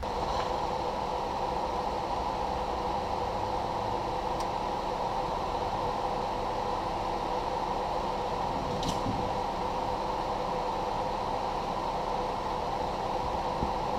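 Steady mechanical whir, fan-like, with a faint steady hum underneath; two faint ticks come about four and nine seconds in.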